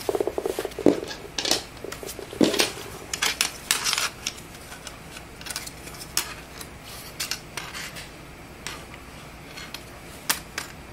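Scattered clicks and clattering knocks of hard plastic and metal computer-case parts being handled, close together in the first few seconds and then more sparse.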